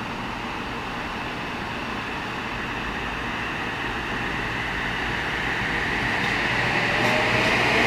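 Kawasaki M8 electric multiple-unit commuter train approaching, its wheel and running noise growing steadily louder. A high whine comes in near the end as it draws close.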